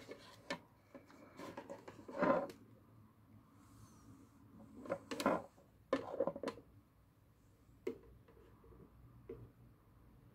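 Irregular clicks, knocks and rustles of small objects being handled, the loudest about two seconds and about five seconds in.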